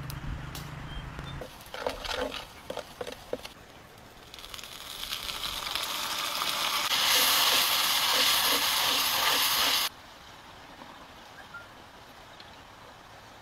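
Food sizzling in a small black pan over a wood fire: a hiss that swells over a few seconds, holds, then cuts off abruptly. A few sharp clicks come before it.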